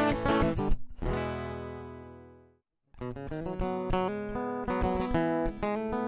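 Steel-string acoustic guitar strumming the last bars of a song; a final chord about a second in rings out and fades to silence. A moment later strummed chords start again as a new song begins.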